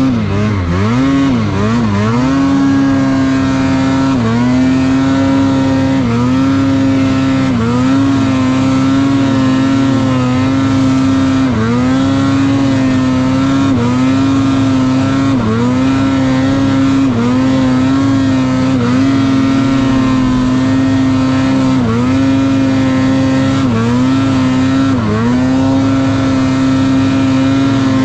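Snowmobile engine running at steady high revs under way through deep snow, its pitch dipping briefly and coming straight back up every second or two as the throttle is eased and reapplied.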